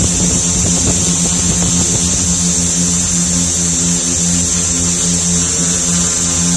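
Drone's electric motors and propellers running in flight, picked up by the camera on the drone itself: a steady hum with a high whine over it.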